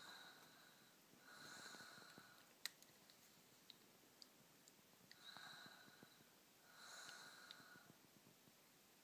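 Soft, whistling snoring: a sleeper's breaths in and out, each about a second long, in two pairs a few seconds apart.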